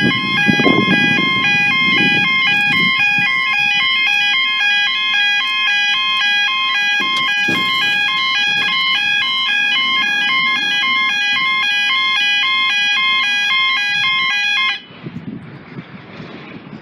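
Level crossing two-tone warning alarm sounding as the barriers lower, a loud, regularly alternating high-low tone. It cuts off suddenly about fifteen seconds in, with the barriers down, leaving faint background noise.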